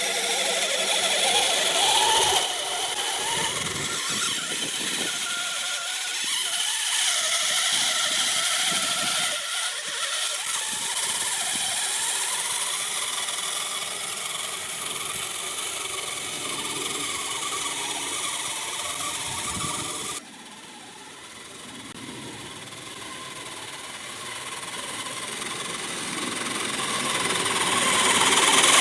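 Electric motor and gearbox of a Kyosho Blizzard RC tracked snow vehicle whining as it drives, the pitch wandering up and down with the throttle. The sound drops suddenly about two-thirds of the way through, then builds steadily louder near the end.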